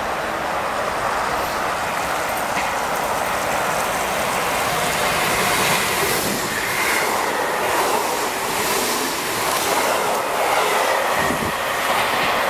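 A coupled pair of NSB Class 69 electric multiple units approaching and passing close along the platform: a growing rush of wheel and track noise with a rhythmic clatter of wheels over rail joints, and a high whine from about halfway.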